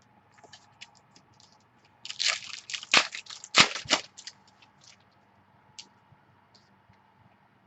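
Trading cards being handled during a box break: crinkling and scraping in a cluster of loud bursts from about two to four seconds in, with scattered small clicks before and after.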